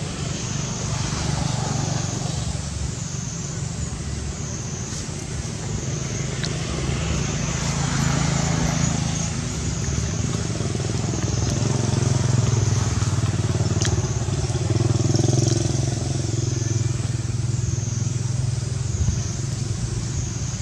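A motor running steadily with a low hum, with a high, wavering buzz that swells and fades about once a second.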